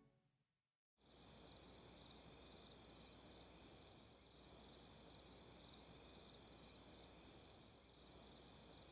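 Faint, steady chorus of crickets, starting about a second in after a moment of dead silence.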